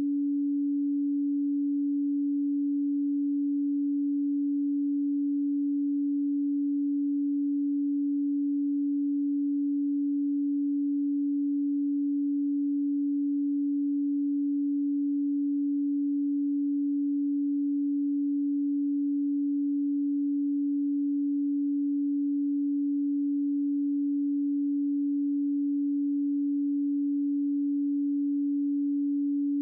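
A pure 285 Hz sine tone, held steady and unchanging.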